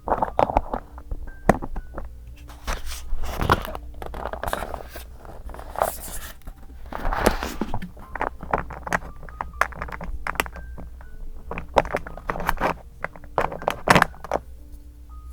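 Paper and stationery handled for journal decorating: rustling, scraping swishes and many light taps and clicks. Quiet background music plays under them.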